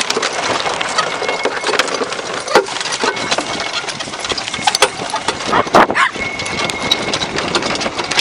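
Wind buffeting the microphone of a golf cart moving fast over a rough field, with frequent rattles and knocks from the cart.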